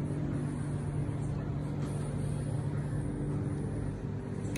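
A steady low mechanical drone with a constant hum beneath an even background noise.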